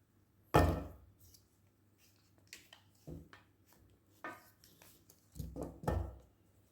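Handling noise from a camera tripod stand being set up: a sharp knock about half a second in, then scattered lighter clicks and knocks, and two duller thumps near the end.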